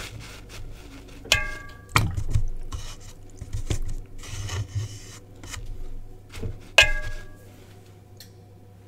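Paintbrushes knocking and rubbing against a hard pot as a brush is picked out: a few scattered knocks, two of them sharp clinks that ring briefly, one about a second and a half in and one just before seven seconds.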